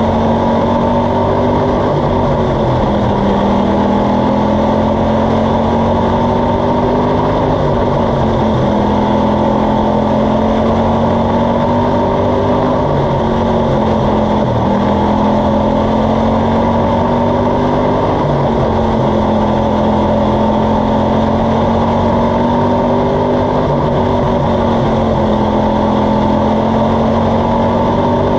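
Jr. Slingshot dirt-track race car's engine running hard, heard from the in-car camera. Its pitch dips briefly and climbs again about every five seconds as the car lifts and gets back on the throttle around the oval.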